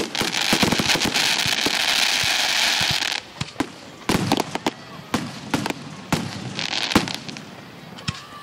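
Fireworks display: dense crackling for about three seconds that stops abruptly, followed by a series of separate sharp bangs and pops with a shorter burst of crackling in between, trailing off toward the end.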